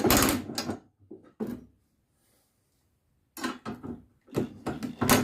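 Irregular metal clanks and knocks as steel log splitter parts and tools are handled: a loud cluster just after the start, a few single knocks around a second in, then more clattering in the last two seconds.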